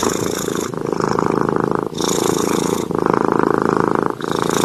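Domestic cat purring loudly close to the microphone, its sound changing about once a second as it breathes in and out.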